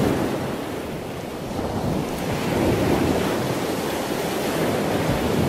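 Ocean surf and wind ambience: a steady rushing noise that swells and eases slowly.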